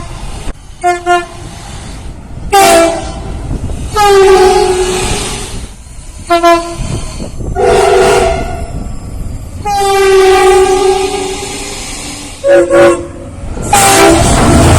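Train air horn sounding a series of blasts, several notes together in a chord. The blasts are a mix of short toots, some in quick pairs, and long blasts of one to two seconds, with a rumble of the passing train underneath.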